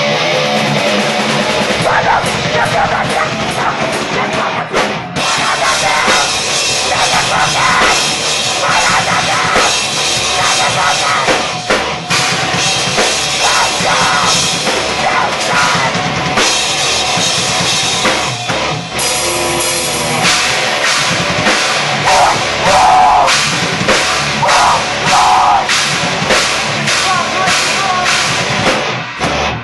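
A live rock band playing a loud, fast song, driven by pounding drum kit strokes with bass drum under a dense wall of band sound.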